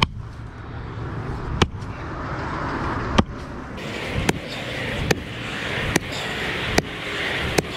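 A long-handled digging tool striking into a fence-post hole choked with tree roots: about eight sharp chopping strikes, coming faster toward the end.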